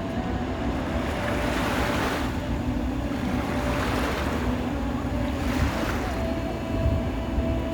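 Sea waves breaking and washing ashore in repeated surges, a few seconds apart, with wind rumbling on the microphone.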